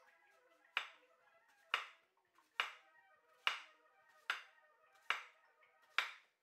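Chef's knife slicing through a zucchini and striking a wooden cutting board: seven chops a little under a second apart, with soft music underneath.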